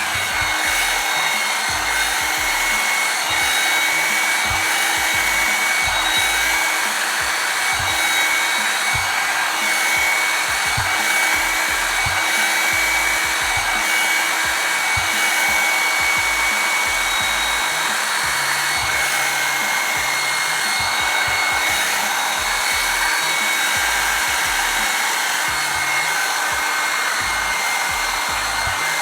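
Revlon One-Step hot-air brush hair dryer running steadily: a loud, even rush of blown air with a constant high motor whine.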